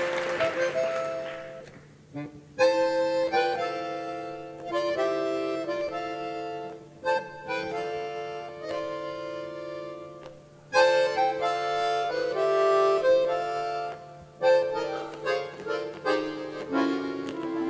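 Accordion playing an instrumental introduction in phrases of held chords with short breaks between them, as applause dies away in the first couple of seconds.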